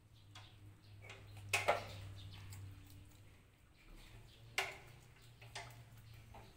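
Dog eating rice with chicken bones from a plastic bowl: chewing with sharp, irregular crunches and clicks, the loudest about a second and a half in and again about four and a half seconds in.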